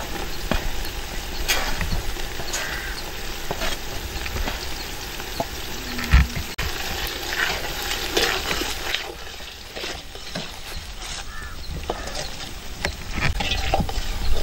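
Sliced shallots and garlic frying in oil in an aluminium pot, with a metal ladle stirring and scraping against the pot in irregular clinks.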